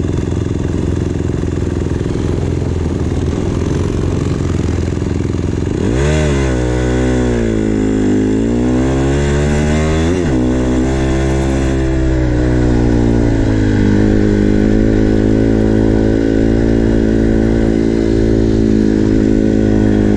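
Small dirt-bike engine running steadily, then revving up about six seconds in, easing off and rising again before dropping sharply, and settling at a steady, slightly faster speed for the rest.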